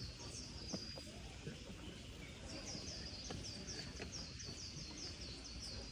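A bird calling: runs of short, high chirps that fall in pitch, about four a second, one run at the start and a longer one from about halfway on, over a steady background hum.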